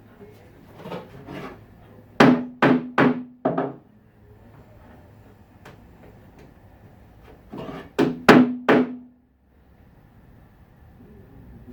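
Sharp blows knocking on a pre-finished plywood cabinet, two runs of about four strikes each, with a short low ring from the cabinet box after each blow.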